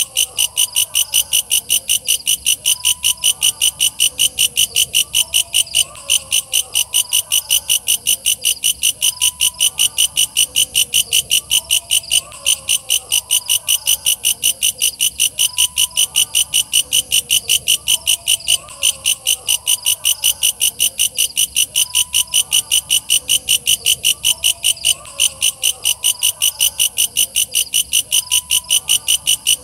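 Walang kecek, a singing grasshopper-like insect, chirping loudly and evenly at about three high, rasping pulses a second, without a break.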